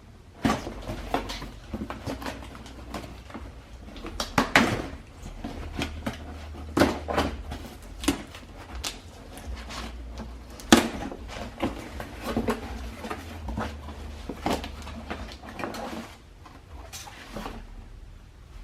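Objects being rummaged through and handled in a box: irregular knocks, clicks and rustles as things are lifted out and set down, over a steady low hum.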